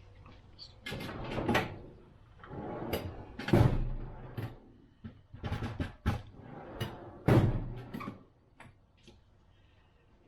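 Metal hand tools scraping and knocking against the corroded pivot nut of old rusted hand pruners, in irregular rasping strokes, with a few lighter clicks near the end.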